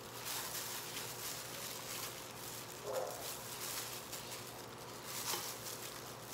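Disposable plastic glove crinkling and rustling as a hand tosses raw chicken wings in dry cornstarch in a bowl, with soft squishing of the coated meat. A brief faint squeak about three seconds in.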